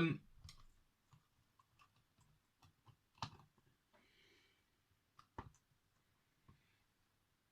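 Sparse faint clicks and taps of a car stereo head unit's parts being handled during reassembly, with two sharper knocks about three and five and a half seconds in.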